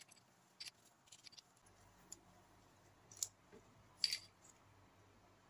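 Quiet handling sounds as the dropper post's metal tube is wiped with a cloth: a few light scratches and clicks, the loudest a short scrape about four seconds in.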